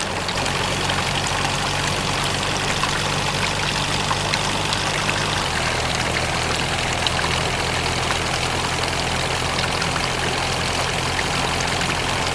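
Small motor of a homemade model tractor humming steadily as it drives a homemade water pump, with the pump's outlet jet pouring and splashing into a muddy puddle. The hum changes slightly about five seconds in.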